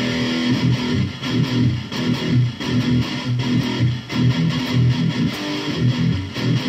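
Electric guitar played through a Boss Katana-100 MkII 2x12 combo on its crunch channel, boosted by the amp's Metal Zone pedal effect. It plays a heavily distorted metal riff of repeated low notes with short breaks between them.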